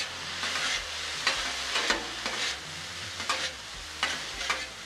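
Fried rice sizzling on a steel flat-top griddle while two metal spatulas scrape and clack across the surface, tossing the rice, in a run of sharp strokes about two a second over a steady hiss.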